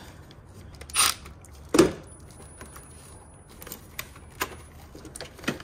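Loose metal clinks and knocks of a car battery's terminal clamp and hold-down hardware being handled and worked loose: two louder knocks about one and two seconds in, then several lighter clicks.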